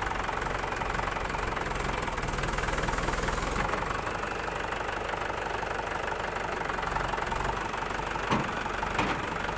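Mahindra 475 DI tractor's four-cylinder diesel engine idling steadily, with two short knocks near the end.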